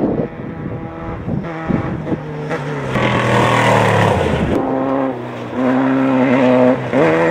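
Off-road race vehicle engines revving hard, the pitch rising and falling and the level jumping up and down several times.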